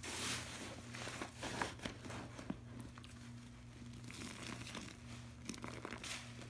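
Soaked green foam sponges squeezed and wrung by hand in a bucket of soapy cleaner lather, the foam crackling with many small pops and wet squishes.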